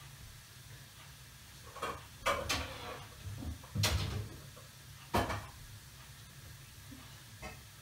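Kitchen cupboard doors and dishes knocking and clattering: about half a dozen sharp knocks, the loudest about four seconds in, over a faint low hum.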